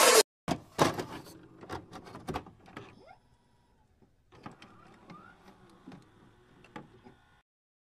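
Glitchy electronic intro sound effects: a run of sharp clicks and crackles that fade over the first three seconds, then a faint whir with small blips and short rising chirps, cutting off shortly before the end.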